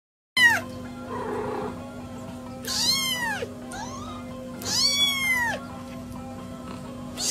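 Young kitten meowing: a short falling cry, then three longer high-pitched meows that rise and fall, about two seconds apart, over a steady low hum.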